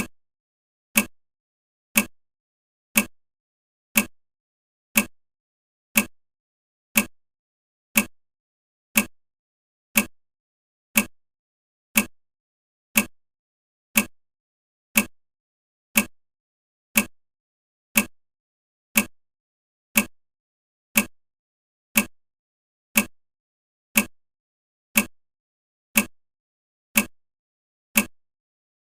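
Countdown timer ticking like a clock, one short sharp tick every second, evenly spaced and all alike.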